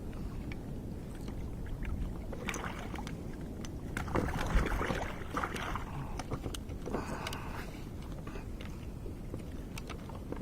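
Water splashing and sloshing around a kayak, with scattered light knocks, over a steady low rumble; the splashing is heaviest about four to six seconds in.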